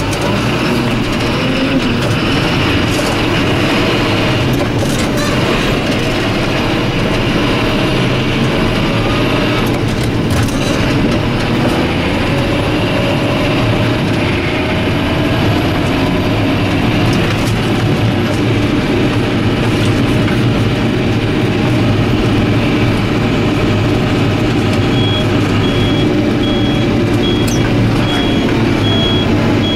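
John Deere 7530 tractor's six-cylinder diesel engine running steadily. A high, even beeping starts about five seconds before the end.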